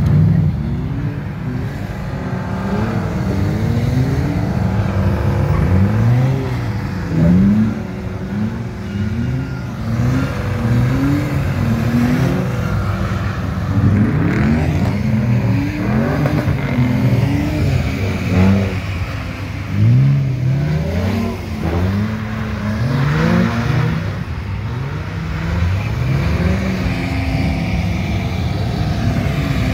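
Car engines revving hard over and over, in quick rising rev sweeps, as cars drift and spin donuts on wet pavement.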